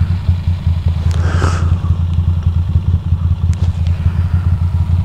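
Ducati Monster 620's air-cooled L-twin engine running at low revs with a steady, even low pulse as the bike rolls slowly over gravel. A short hiss comes about a second and a half in, and faint clicks come a couple of seconds later.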